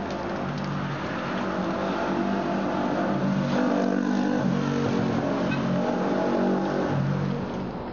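A car engine running and revving for several seconds, dropping away near the end.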